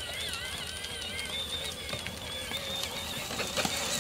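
A battery-powered John Deere ride-on toy tractor driving over mown grass, its electric motor and gearbox giving a steady, high whine whose pitch wavers as the load changes.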